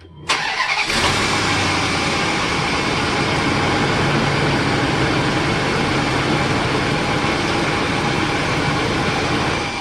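2006 Dodge Durango's 4.7-litre V8 starting, catching almost at once and then running steadily at idle, started right after an oil change.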